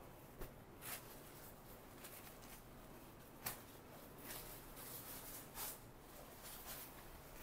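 Faint rustling of saree fabric handled and spread out by hand on a table: a few brief, soft swishes over a low room hiss.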